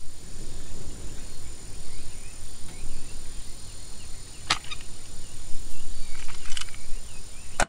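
Outdoor nature ambience: a low wind rumble with faint bird chirps and a steady high-pitched drone. A sharp click comes about four and a half seconds in, a few lighter clicks follow a couple of seconds later, and a last sharp click comes just before it cuts off.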